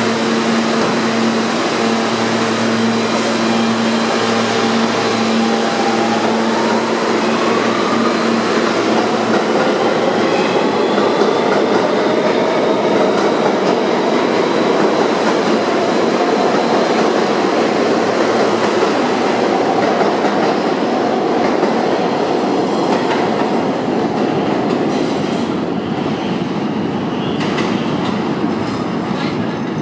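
R160B Siemens subway train pulling out of the station. It hums steadily at first, then a whine rises in pitch from about six seconds in as it accelerates away. Wheels click over rail joints as the sound eases off toward the end.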